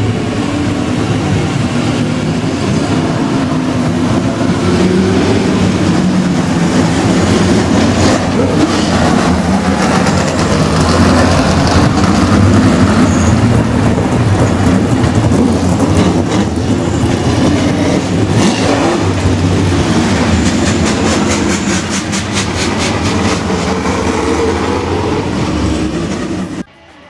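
Classic V8 race cars driving past one after another, their engines running loud and revving up and easing off. The sound cuts off suddenly near the end.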